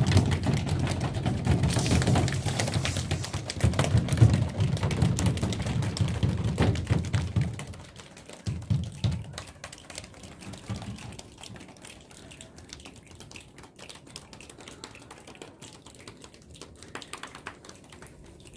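Body percussion from a group of children: a dense, loud patter of hands slapping thighs for about eight seconds, then dying down to a much lighter patter of finger snaps and hand claps.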